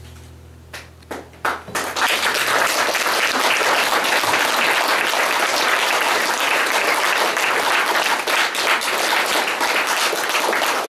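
The last acoustic guitar chord dies away, a few separate claps start about a second in, and from about two seconds the audience applauds steadily.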